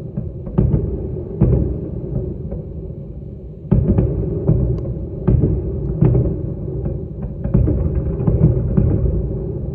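A series of explosive booms, several a few seconds apart, over a continuous low rumble.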